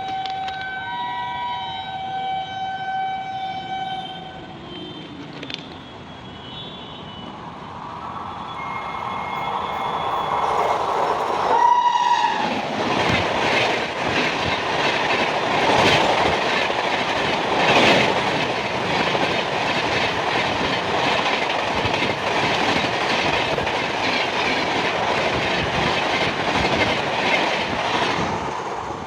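A WAP-7 electric locomotive's twin-tone horn sounds in long two-note blasts over the first few seconds, with shorter toots as the express approaches at about 130 km/h. A last horn blast comes about twelve seconds in as the locomotive arrives. Then the train rushes past at full speed with a rapid clatter of wheels over rail joints, which stops just before the end.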